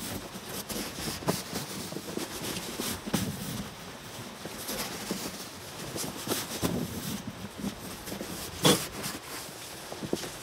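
Mama-san dump snow scoop scraping and shoving through heavy, wet snow in irregular pushes, with a sharp knock about nine seconds in.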